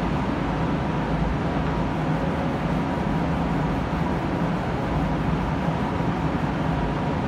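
Spray booth ventilation fans running: a steady rushing drone with a low hum and a faint whine.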